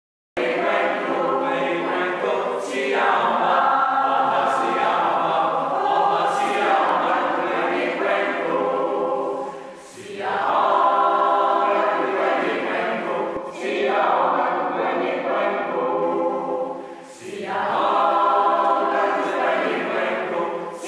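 Mixed choir of men and women singing in several parts, cutting in abruptly just after the start. The singing runs in long phrases with brief breaks about ten and seventeen seconds in.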